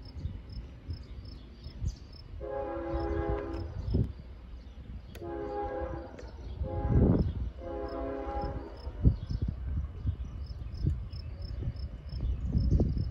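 Multi-chime air horn of an approaching diesel locomotive, heard from a distance, sounding long, long, short, long: the standard signal for a grade crossing. A low wind rumble sits underneath, with a regular high chirping behind it.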